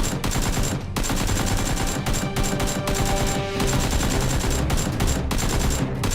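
Rapid automatic gunfire sound effects, a dense run of shots without a break, dubbed over a toy-blaster battle scene.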